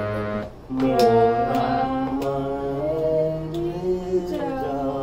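Harmonium playing sustained notes, pumped by hand, with a voice singing held notes along with it and sliding between some pitches. There is a short break in the sound about half a second in.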